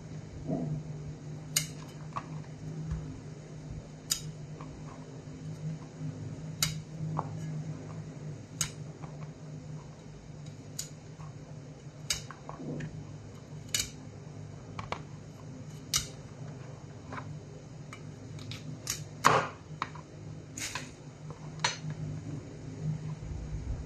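Chef's knife cutting broccoli into florets, the blade knocking sharply on the cutting board every second or two, over a steady low hum.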